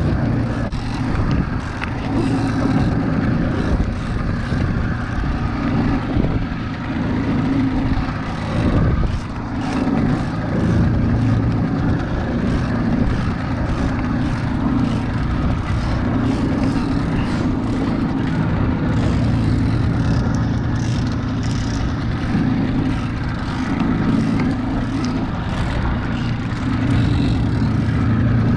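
Evinrude 48 two-stroke outboard motor running steadily, a constant low hum, with wind rushing and buffeting over it.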